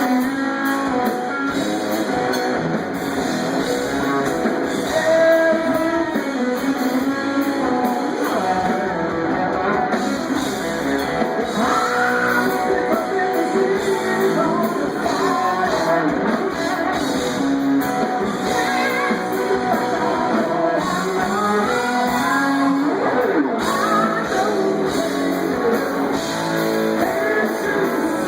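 Rock trio playing live through a club PA: electric guitar, bass and drums with a sung lead vocal, loud and continuous.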